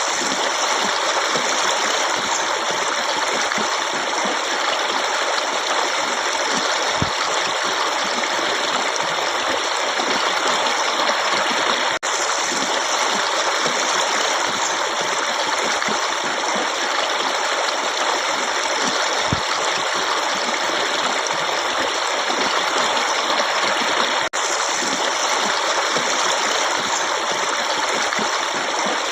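Running water flowing steadily, an even rushing with no let-up except two momentary dips, about twelve and twenty-four seconds in.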